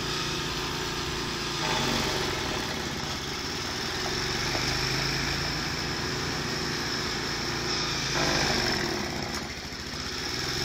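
An engine running steadily with a low hum, swelling a little about two seconds in and again about eight seconds in.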